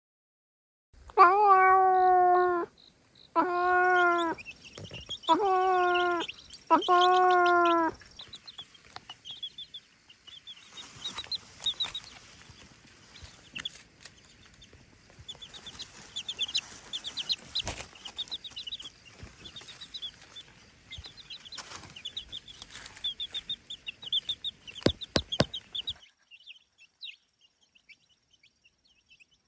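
Four long, drawn-out animal calls in the first eight seconds, each about a second and a half and holding a steady pitch. They are followed by a long stretch of rapid, high-pitched chirping and peeping with scattered clicks, which stops near the end.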